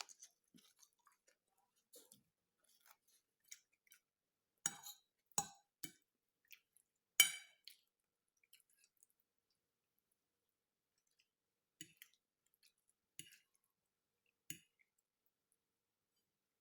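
Close-miked mouth sounds of someone eating: scattered short clicky chewing and smacking sounds with quiet gaps between. The loudest comes a little after seven seconds in, and there is a light clink or two.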